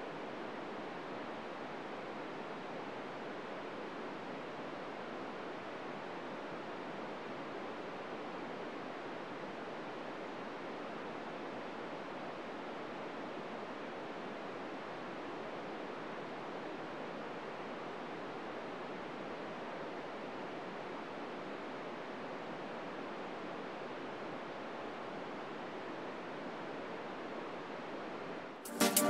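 Steady FM radio static hiss from a 2 m receiver tuned to the ISS SSTV downlink on 145.800 MHz, with no SSTV tones in it: only noise is being received as the station sits near the horizon. Loud electronic music cuts in right at the end.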